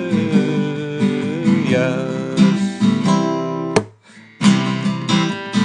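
Acoustic guitar strumming chords as song accompaniment between sung lines. The playing stops briefly about four seconds in, then resumes.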